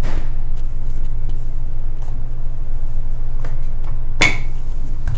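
Handling sounds of a white rolling pin and croissant dough on a granite counter: light taps, with one sharp clack about four seconds in, over a steady low hum.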